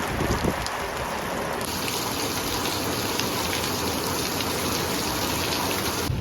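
Heavy rain falling in a steady hiss, growing brighter and fuller about a second and a half in.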